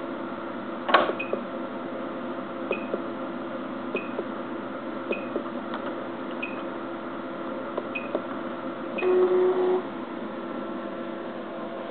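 Abacus C-2800 coin sorter standing with its sorting motor stopped: a faint steady hum, a sharp click about a second in, soft short blips a little over a second apart, and a short buzzing tone about nine seconds in.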